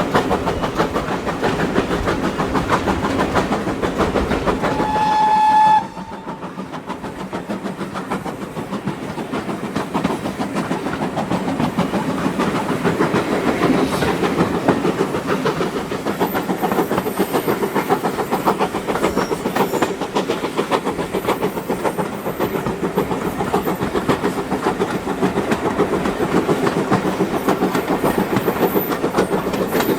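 Steam-hauled train running with a steady, rapid beat. About five seconds in, the locomotive's whistle gives one short single-note blast, and just after it the sound drops abruptly.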